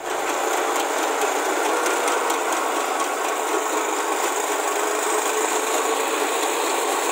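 12 HP mini tractor's engine running steadily under load while its rear rotary tiller churns through dry soil, a continuous mechanical drone with a grinding, rasping edge.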